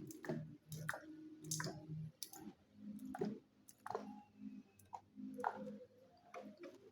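Light plastic clicks and taps, irregular and about one or two a second, from handling ink bottles and the caps of an ink-tank printer's tanks while it is being filled. A faint low hum runs underneath.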